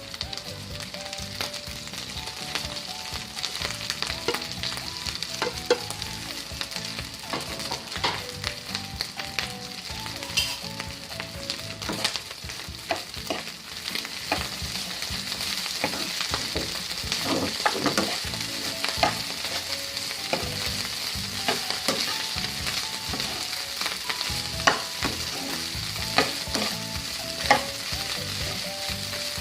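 Rice being stir-fried in hot oil with garlic and hotdog: a steady sizzle, with a spatula scraping and knocking against the pan many times.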